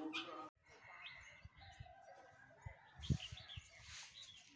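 Faint outdoor bird chirps, with a few low thumps partway through.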